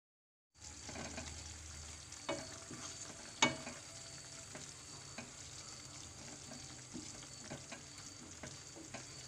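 Chicken and potato curry simmering with a steady sizzle in a frying pan while it is stirred with a spatula, starting about half a second in. The spatula clinks against the pan, loudest about three and a half seconds in, with lighter taps later.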